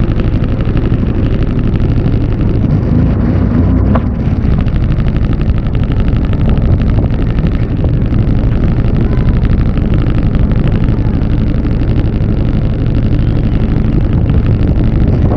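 A jet ski running at speed over ocean swells: a loud, steady engine drone mixed with the rush of water and wind.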